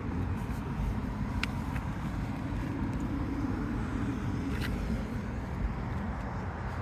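Vehicle noise: a steady low rumble, with a faint click about a second and a half in and another near the middle.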